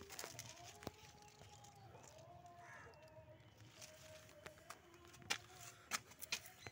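Near silence: faint outdoor background with a thin, wavering distant tone and a few light clicks near the end.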